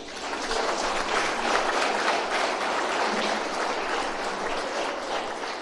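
Audience applauding, a dense patter of many hands clapping that swells about a second in and eases off near the end.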